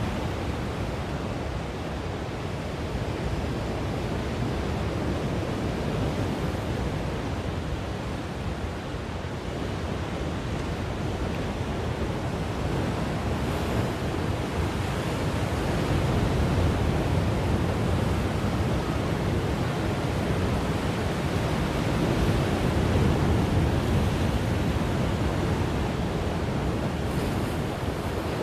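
Heavy sea surf crashing on and washing over a rocky shore of dark volcanic boulders: a continuous rush of breaking water that swells louder with bigger waves about halfway through and again later on.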